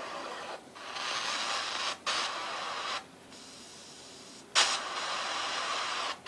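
FM radio hiss from a BlackBerry Q10's loudspeaker while the radio steps between stations. The hiss cuts out briefly about half a second in and again at two seconds, goes quiet for about a second and a half from three seconds, then comes back with a short loud burst.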